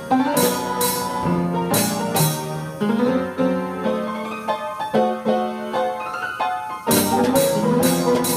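Orchestrion playing a tune on its piano with regular drum and tambourine-like strikes. The percussion drops out about three seconds in, leaving the piano alone, and comes back near the end.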